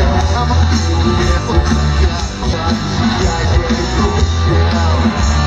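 Loud rock music with guitar over a heavy, steady bass.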